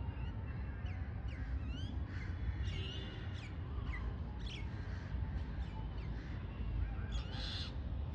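Birds calling: a string of short, sharp chirps sweeping in pitch, with a harsher, caw-like call about seven seconds in, over a steady low rumble.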